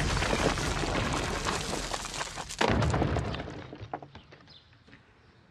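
Film explosion sound effect as a tree bursts up through a house roof: a loud boom with crackling, a second surge about two and a half seconds in, then fading away by about four seconds.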